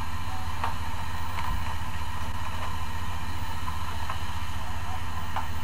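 Steady low hum under a constant hiss, with a few faint clicks scattered through it.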